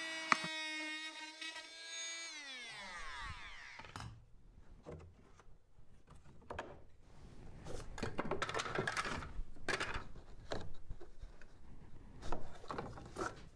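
Oscillating multi-tool cutting out a corner of the siding with a steady whine, switched off about two seconds in, its pitch falling as the motor winds down. After that, scattered light knocks and scrapes as the cut pieces and spacers are handled.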